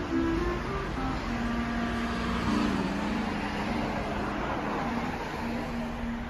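Road traffic: a car going by on the street, its noise strongest around the middle, under soft background music holding a few low notes.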